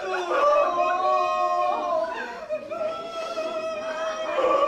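Theatrical wailing: exaggerated mock crying drawn out in long, wavering high notes, put on to show grief.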